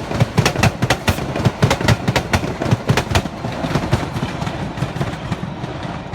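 MBTA Blue Line subway train passing, its wheels clicking rapidly over rail joints for about three seconds, then running on with a steady rumble that slowly fades.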